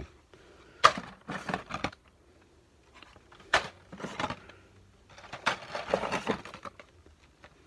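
Blister-carded Hot Wheels cars being handled and pulled out of a divided cardboard case: plastic blisters and card clacking and rustling, with a sharp click about a second in and another about three and a half seconds in.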